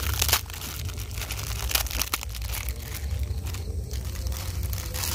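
A red plastic food packet crinkling and crackling as hands handle it and open it, in a run of irregular crackles.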